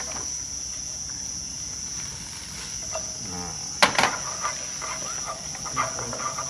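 Crickets chirring steadily and high-pitched. About four seconds in, two sharp knocks come from a wooden spatula striking the wok during stir-frying.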